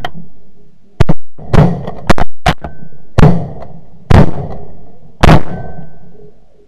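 Several shotguns firing a rapid volley at snow geese: about seven shots in some five seconds, each sharp report trailing off in a short echo.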